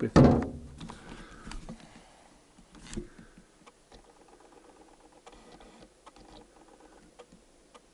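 Faint, scattered clicks and taps of a handheld camera being handled while it is refocused.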